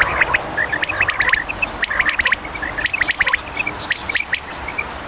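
Quail calling: quick bursts of short, high chirping notes, each burst coming roughly once a second.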